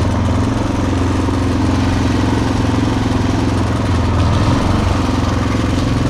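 A motor running steadily at idle: an even, unchanging low hum.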